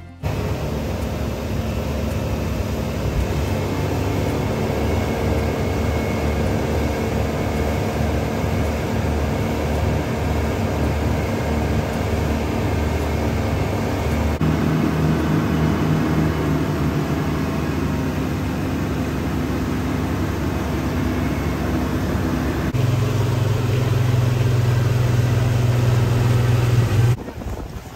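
An engine running steadily; its pitch changes abruptly about halfway through and again near the end.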